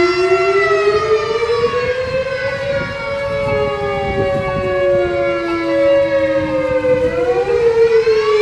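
Two fire station alarm sirens sounding at once, loud and steady. Their pitches glide slowly up and down out of step: one rises while the other falls, and the two tones cross and beat against each other. About seven seconds in, the lower tone swings sharply back up.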